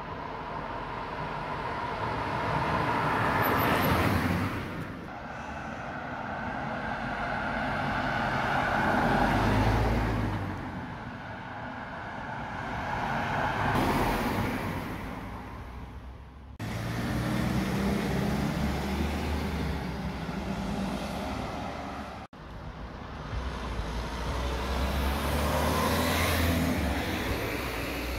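Cars driving past on a road one after another, about five pass-bys, each rising and fading as it goes by.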